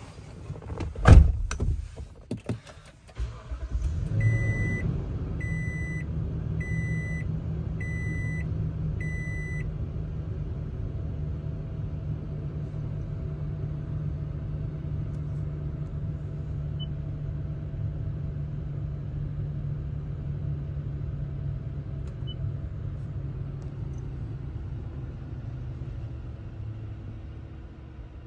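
A sharp thump about a second in, then the 2020 Toyota Sequoia's 5.7-litre i-Force V8 starts about four seconds in and settles into a steady idle. A dashboard chime beeps five times, about once a second, just after the start.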